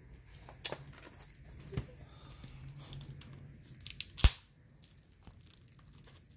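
Plastic wrapping being torn and peeled off a sealed box of trading cards: scattered crinkling and crackling, with one sharp snap about four seconds in.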